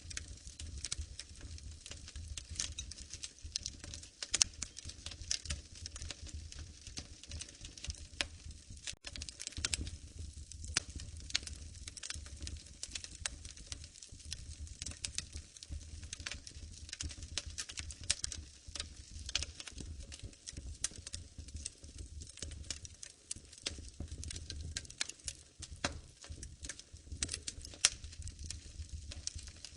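Wood fire crackling in a fireplace: many irregular sharp pops and snaps over a low steady rumble.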